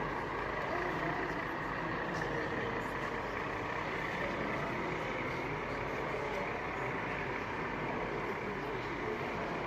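Steady hubbub of many people talking at once in a busy exhibition hall, with no single voice standing out.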